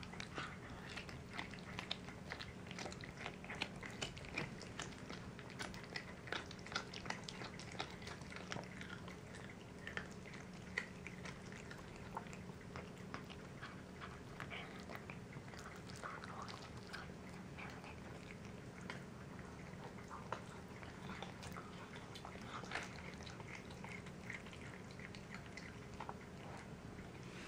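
A cat chewing raw chicken leg and thigh pieces with the bone and skin on: an irregular run of crunches and clicks as its teeth work through meat and bone.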